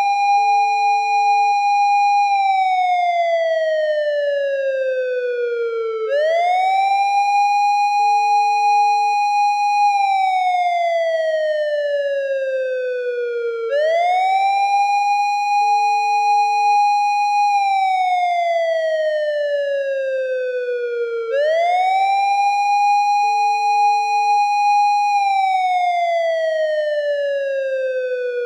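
Japanese police car siren wailing: each cycle the pitch sweeps up fast, holds high for about two seconds, then slides slowly down over about four seconds, repeating about every seven and a half seconds, four times through. A short, low, steady tone sounds once in each cycle, soon after the low point.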